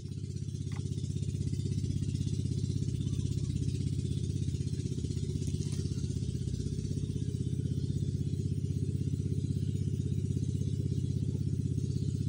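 A small engine running steadily with a fast, even throb, growing louder over the first two seconds and then holding level.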